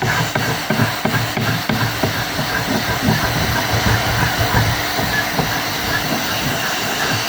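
Old varnish being scraped off mahogany galley-front woodwork: irregular scraping strokes over a steady hiss.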